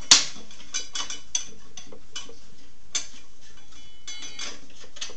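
A sharp metal clack right at the start, then light, irregular metal clicks and ticks as the arbor nut is worked off the Craftsman table saw's blade arbor by hand.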